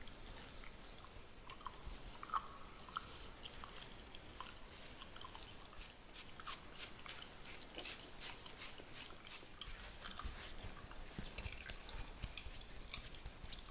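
Fingernails scratching through a beard close to the microphone: a dense run of crisp, high crackles and ticks, thickest midway through.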